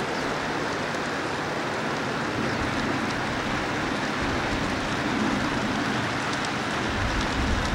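G scale model freight train rolling past on the garden-railway track: the steady rattling hiss of many small wheels running on the rails, with a little more low rumble near the end.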